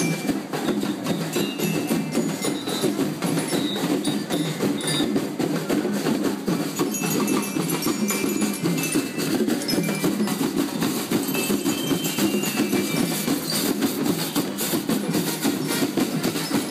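Parade drum band playing: a bass drum and other hand-beaten drums struck together in a fast, steady rhythm.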